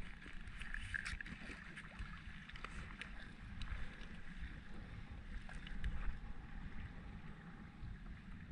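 Low, steady rumble of wind and water around a jet ski at rest on the sea, with scattered faint clicks and rustles of gear being handled.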